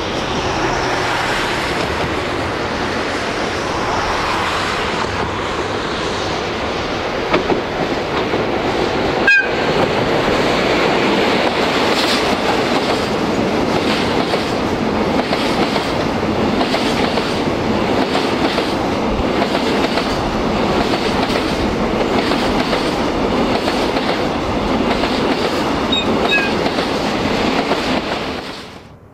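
A JR Freight DD51 diesel locomotive passes at speed with a long train of container wagons, its engines running loud at first. The wagons follow with a rhythmic clickety-clack of wheels over the rail joints. The sound cuts off sharply near the end.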